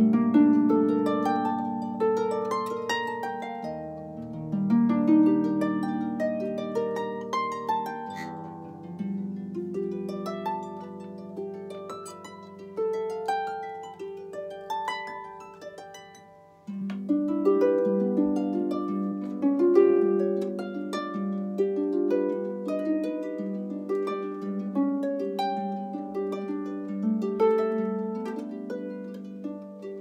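Solo harp, plucked by hand in an improvised passage: a flowing line of ringing notes over held low notes. It thins out and fades just before the middle, then comes back in with a loud low note and carries on.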